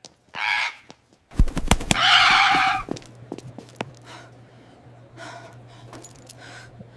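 Parrot squawking in a series of short harsh calls, the loudest about two seconds in and fainter ones after it. A few sharp low thumps come just before the loudest squawk.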